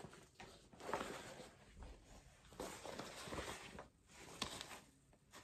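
A fabric shoulder bag being handled: quiet, intermittent rustling and scuffing of the cloth as it is lifted and pulled open.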